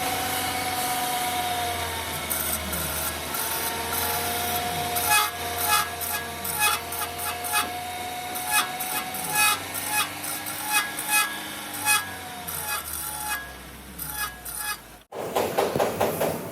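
GMC front disc brakes squealing with a steady tone that wavers a little in pitch, over a rubbing, scraping noise, with repeated sharp clicks from about five seconds in. It all cuts off suddenly near the end, where a different, louder rushing noise follows.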